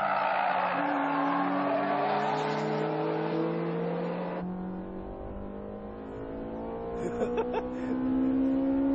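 Honda Civic Type R race cars' four-cylinder engines accelerating hard on track, their pitch climbing slowly as the revs rise, with tyre noise in the first half. The sound changes abruptly a little over four seconds in.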